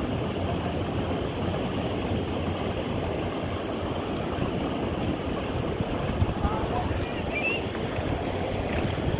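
Steady wind rumble on the microphone over shallow sea water sloshing and lapping, with a few faint high chirps a little past the middle.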